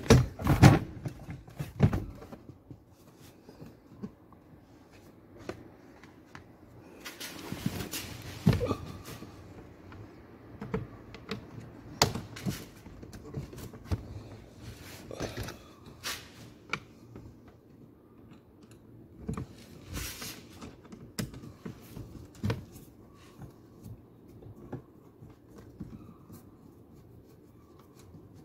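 Nissan Tiida's plastic glovebox being refitted into the dashboard: scattered knocks, clicks and taps of plastic parts being pushed and snapped into place, with a short scrape or rustle about eight seconds in.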